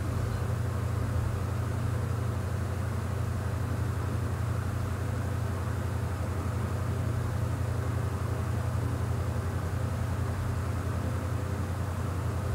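Steady low hum, unchanging throughout, with nothing else standing out.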